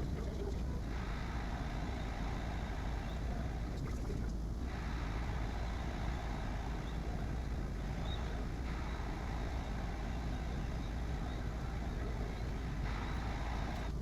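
Bambu Lab A1 3D printer running a print: a steady low fan hum, with a higher motor whirr that changes character every few seconds as the print head moves.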